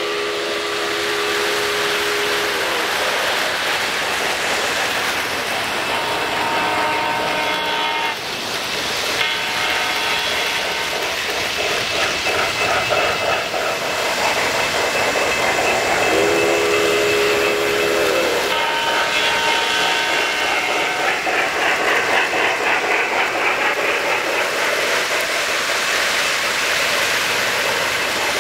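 O-scale model trains running on three-rail track, with a steady rolling rumble and clatter. A train whistle sounds a chord of steady tones near the start and again about halfway through, and other higher steady tones come and go in between.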